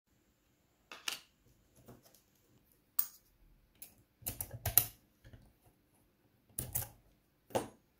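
Key being pushed into and turned in a rusty euro-profile lock cylinder: a scattered series of sharp clicks and short scrapes, the loudest a little under five seconds in.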